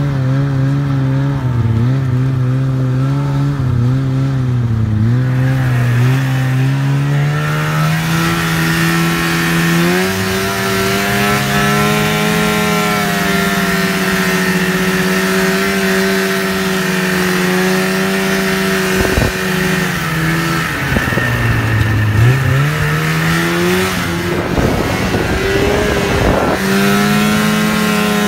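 Snowmobile engine running while riding. Its pitch climbs, holds steady, dips about two-thirds of the way through and picks up again as the throttle changes.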